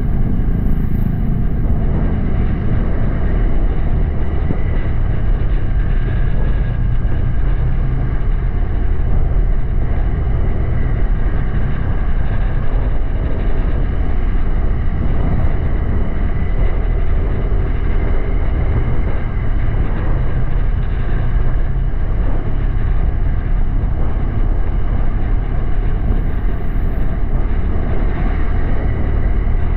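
Honda Click 125i scooter's single-cylinder engine running steadily on the move, under a heavy rush of wind on the microphone.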